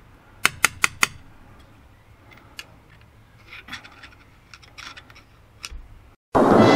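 A hammer strikes the end of a screwdriver four times in quick succession to shock a tight screw loose in a motorcycle engine case, followed by a few lighter clicks of the tools. Loud, dramatic orchestral music cuts in at the very end.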